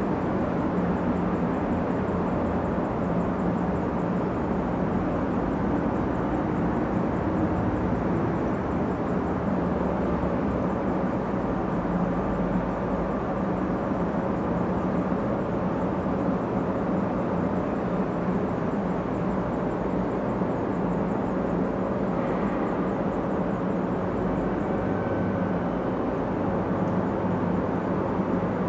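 Steady low rumbling background noise with a faint continuous hum, unchanging throughout.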